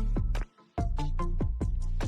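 Electronic background music with a steady beat and deep bass, dropping out briefly about half a second in.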